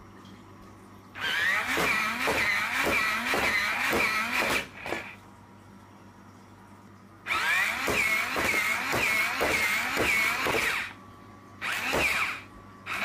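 Small toy robot's electric motors whirring in two bursts of a few seconds each, with a warbling whine and a regular pulse about three times a second as it moves; a short burst follows near the end.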